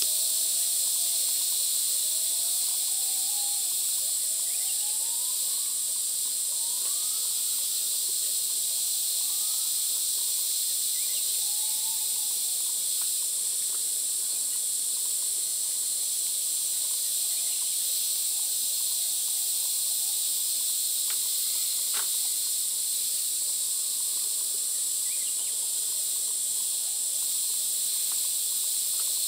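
Steady high-pitched insect chorus. For the first dozen seconds a bird gives a series of short whistled notes, each rising and then falling, and a few faint high chirps and sharp clicks follow later.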